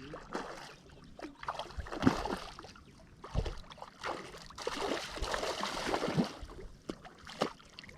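Water splashing in irregular bursts, with a few sharper splashes: a hooked trout thrashing at the surface as it is steered toward a landing net and refuses to go in, not yet tired out.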